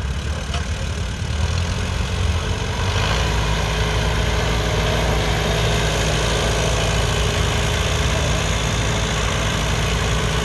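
Vintage Allis-Chalmers tractor engine running steadily at low speed as the tractor creeps along, growing a little louder about three seconds in as it comes closer.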